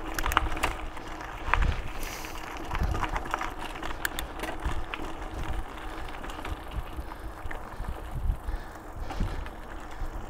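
Mountain bike ridden along a dirt trail: tyres rolling over the ground, with the bike clicking, rattling and knocking over bumps.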